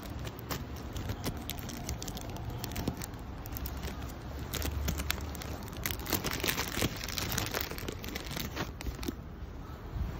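Hand rummaging in a pocket or bag by the phone, a stretch of crinkling and rustling with many small clicks and bumps of handling. A low rumble of handling and wind noise sits under it.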